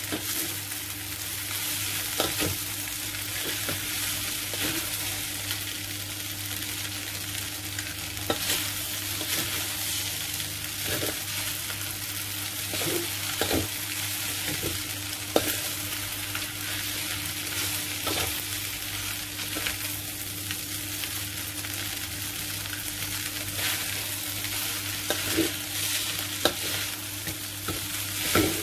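Rice vermicelli, meat and vegetables sizzling in a steel wok while being stir-fried, with chopsticks and a metal spatula clicking and scraping against the pan now and then. A steady low hum runs underneath.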